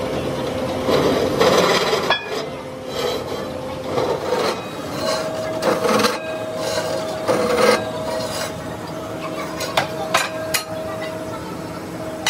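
Pillar drill press running with a steady hum while its bit cuts into the bolt holes of a steel wheel disc, in several rasping bursts of about a second each, with a couple of sharp metal clicks late on as the steel rim is shifted on the drill table.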